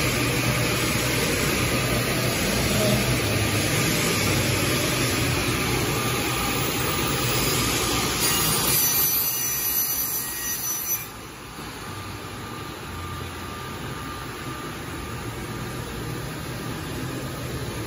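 Holytek double-end tenoner running, its spindle motors and cutters making a steady machine noise while a wooden board is pushed through on the sliding table. The noise is loud for about the first eleven seconds, with a brighter, higher-pitched stretch just before, then drops suddenly to a quieter steady hum.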